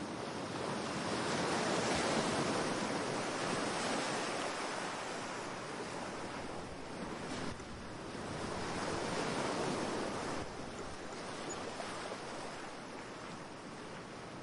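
Waves washing onto a shore: a steady rushing surf that swells and falls back, loudest about two seconds in and again around nine to ten seconds.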